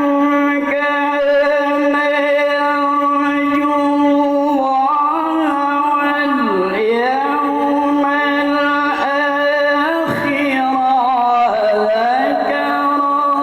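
A male Qur'an reciter's voice sustaining one long melismatic phrase in melodic tilawah style. The note is held mostly on a steady pitch with ornamental wavers, and it swoops down and back up about six and again about eleven seconds in.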